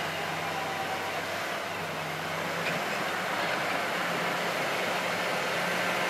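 Fiat-Hitachi D180 crawler bulldozer's diesel engine running steadily as the machine crawls across muddy ground on its tracks, getting a little louder about halfway through as it comes closer.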